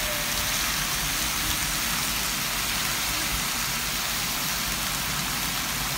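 Eggplant, sausage and peppers sizzling in a hot oiled pan: a steady frying hiss.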